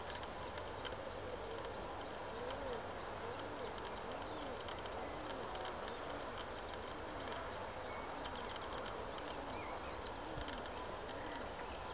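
Outdoor ambience with faint, high chirping of small birds. A couple of seconds in, a low hooting note begins, rising and falling, repeated about every three-quarters of a second until near the end.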